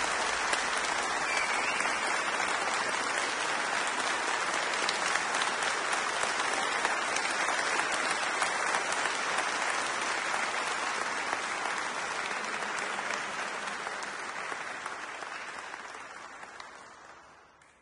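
Audience applause, a dense steady clapping that fades out gradually over the last few seconds.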